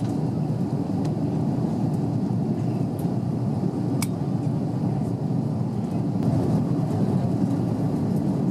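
Steady roar of an Airbus A330's engines and airflow heard inside the passenger cabin. A single faint click about four seconds in.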